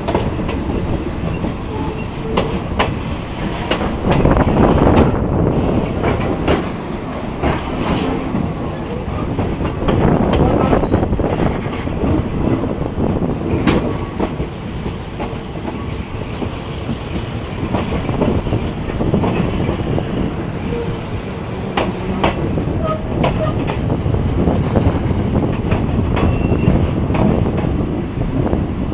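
Passenger train running, heard from an open carriage window: a steady rumble with the wheels clacking irregularly over the rail joints.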